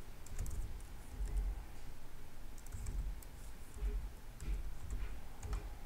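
Computer keyboard typing in scattered, irregular keystrokes, with a few low thumps among the clicks.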